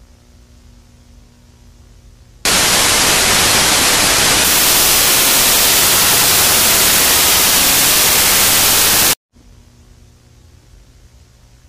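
A loud burst of harsh static noise starts suddenly about two and a half seconds in, holds steady for about six and a half seconds, then cuts off abruptly. Before and after it there is only a faint hiss with a low hum.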